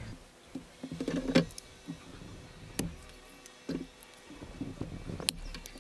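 Bonsai knob cutters biting off old branch stubs on a Japanese maple: several sharp snips, the loudest about a second and a half in.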